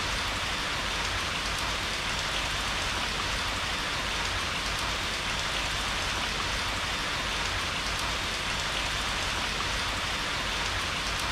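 Heavy rain pouring down steadily in an even hiss.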